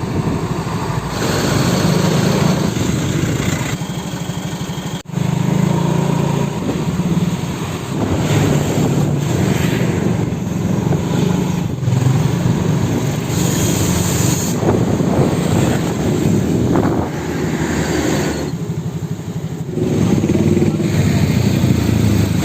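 Road traffic: motor vehicle engines running steadily, with noise that swells and fades as vehicles pass.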